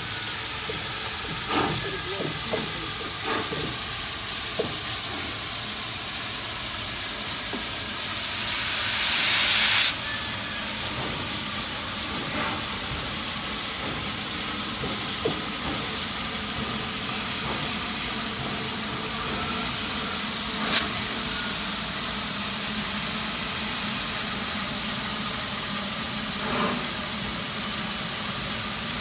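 Southern Pacific 4449, a GS-4 4-8-4 steam locomotive, standing and hissing steam steadily. About eight seconds in a louder rush of steam builds for two seconds, then cuts off suddenly. A single sharp click comes near the middle.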